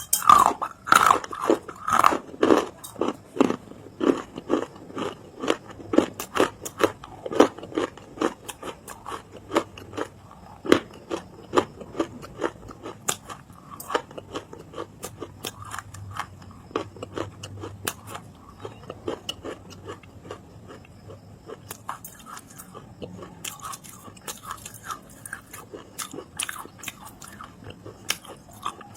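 Close-up crunching and chewing of dry eating clay in a person's mouth: a quick run of loud, sharp crunches in the first several seconds that thins into quieter, sparser crunches of chewing.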